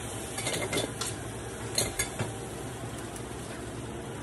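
Metal tongs clinking and scraping against a frying pan as a cooked steak is lifted out, with a few short clicks about half a second in and again around two seconds in.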